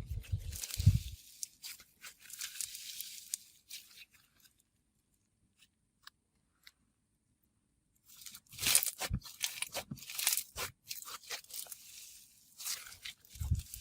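Herbal Jelly Shaved Ice slime handled by hand, stretched and squished, making noisy tearing sounds and soft thumps at first. After a few seconds of near silence comes a fast run of small crackles and pops.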